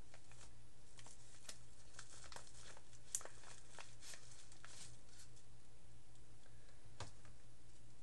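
A paper postal packet being handled and opened by hand: a run of light crinkles and crackles through the first five seconds, with a sharper snap about three seconds in and another about seven seconds in.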